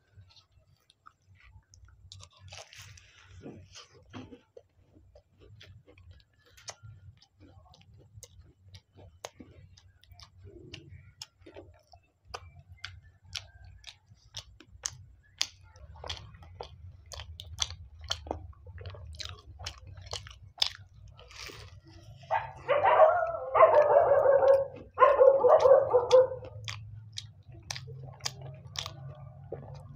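Close-miked eating of a fried samosa: crisp pastry crackling and crunching in bites, then steady chewing with many small sharp clicks. About two-thirds of the way in come three loud, pitched vocal sounds from the eater, each about a second long.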